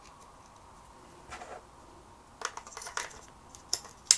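A few small, sharp plastic-and-metal clicks and light rattles as a battery is fitted into a Sony Walkman WM-EX610 cassette player, the sharpest click just before the end.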